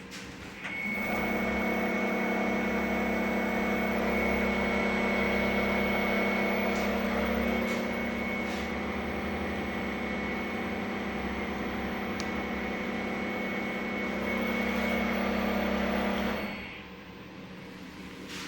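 Motorized driven-tool holder on a GSK-controlled CNC lathe turret spinning. A steady motor hum with a high whine starts about a second in, gets slightly quieter about halfway through, and stops shortly before the end.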